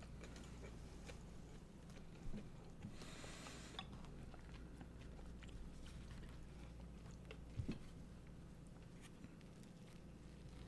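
Quiet eating sounds: a big bite into a tempura-battered fish burger, then soft chewing with faint mouth clicks, and a brief hiss about three seconds in.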